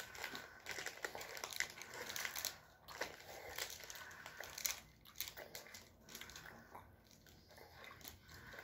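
Faint crinkling of a Cap'n Crunch's Peanut Butter Crunch bar wrapper being handled and turned over in the fingers, in short irregular crackles, with crunchy chewing mixed in.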